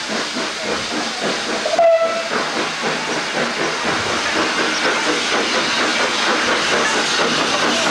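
0-6-0 steam tank locomotive running slowly past with a steady hiss of steam, and a short toot of its whistle about two seconds in.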